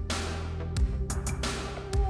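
Electronic background music with a heavy bass line and a steady drum beat.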